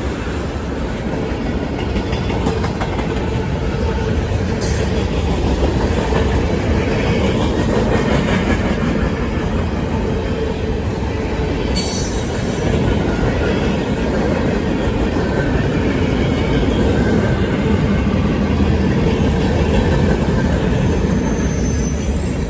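CSX local freight train rolling past at close range, its car wheels clacking over the rail joints, with brief high wheel squeals twice.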